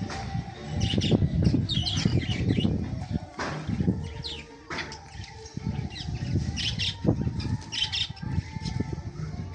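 Domestic pigeons flapping their wings in repeated fluttering bursts as they take off and land, with short high bird chirps over the top.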